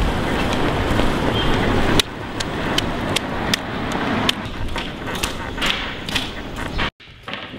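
Street background noise with passing traffic and scattered clicks and knocks. The sound changes abruptly about two seconds in and drops out completely for a moment near the end.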